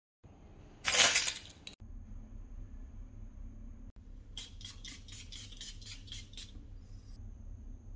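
Glass cologne atomizer bottle being sprayed: one longer hiss about a second in, then a quick run of about nine short spritzes around the middle.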